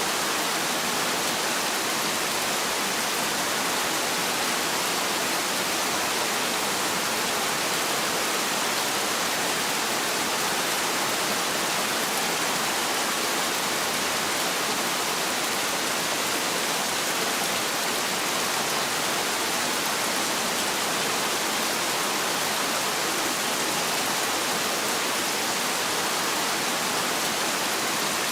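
Heavy rain falling steadily, an even, dense hiss with no thunder.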